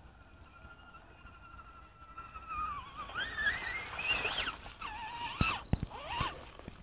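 RC rock crawler's motor whining, steady at first, then rising and falling in pitch as the throttle is worked while it climbs through the mud, with a few sharp knocks about five and a half to six seconds in.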